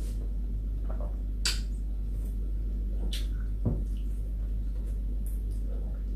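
A person eating rice and fried fish by hand close to the microphone: a few soft mouth clicks and smacks while chewing, over a steady low hum.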